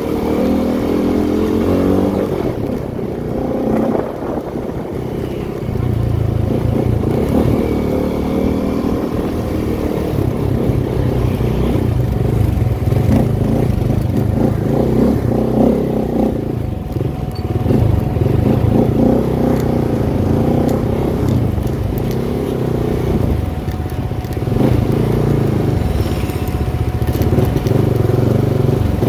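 CFMOTO 300SR motorcycle's single-cylinder engine running while riding, its revs rising and falling.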